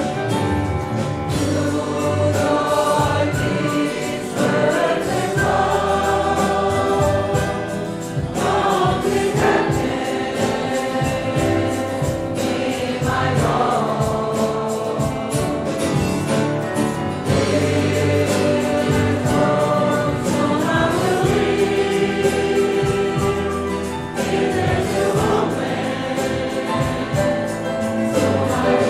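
Congregation singing a hymn together, with instrumental accompaniment holding steady low notes beneath the voices.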